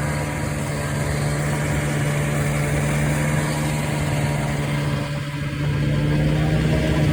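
Arctic Cat Puma snowmobile's small fan-cooled two-stroke engine running steadily under way, easing off briefly about five seconds in, then picking up again.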